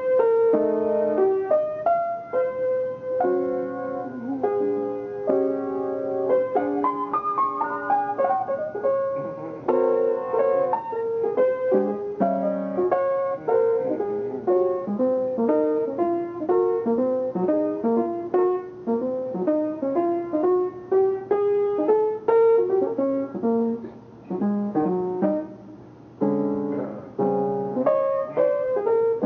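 Jazz piano playing a melodic line of single notes over chords, with a rising run of notes and a brief softer stretch about two-thirds through before the playing picks up again.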